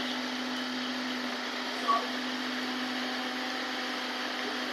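Steady mechanical hum with a constant low drone, and one brief short sound about two seconds in.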